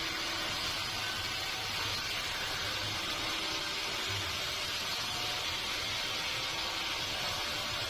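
Sawmill machinery running steadily, an even hiss with a low hum underneath and no distinct cuts or knocks.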